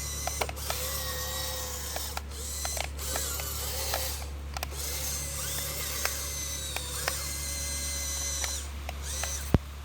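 Small electric gear motors of a scale-model Kubota DC-105X combine harvester whining, their pitch wavering, with frequent ratchety clicks from the gears. A sharp click near the end, after which the whine drops away. A steady low electrical hum underneath.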